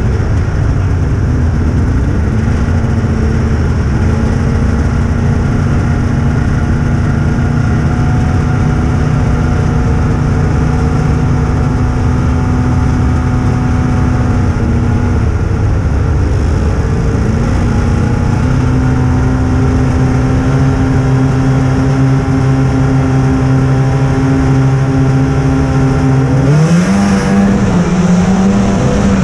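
Race snowmobile engines running steadily while the sleds wait on the start line, the nearest one loud and close to the microphone. Near the end they rev up sharply as the sleds launch off the line.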